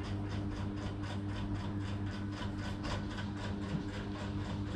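Steady machine hum with a fast, even ticking, about four ticks a second.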